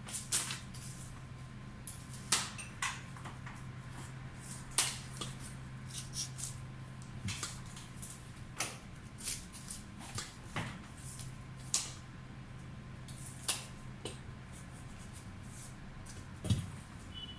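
Leafy stems and cut foliage being handled and set into a floral arrangement: irregular short rustles and clicks, over a steady low hum.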